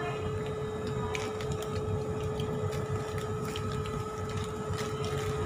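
Steady machine hum holding one constant tone, over a low room rumble with scattered small clicks.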